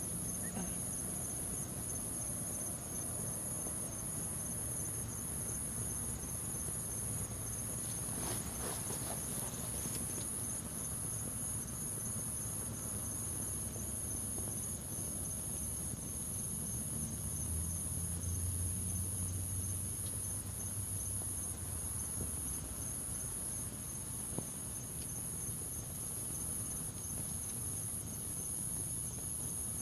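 Crickets chirping steadily in a continuous high-pitched pulsing trill. A low hum swells for a few seconds in the middle.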